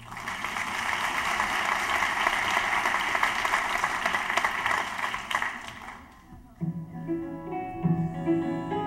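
Audience applauding for about six seconds, then music starts with plucked string notes over a low bass line.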